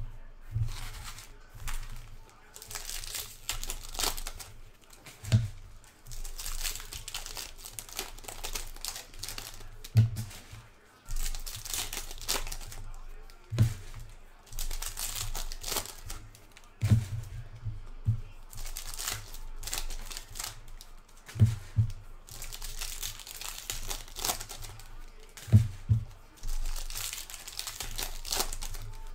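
Foil trading-card pack wrappers crinkling and tearing as they are handled and torn open, in repeated bouts of a second or two, with a short dull thump every few seconds.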